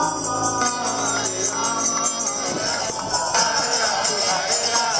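Devotional kirtan music: voices chanting over a steady, jingling beat of small hand cymbals.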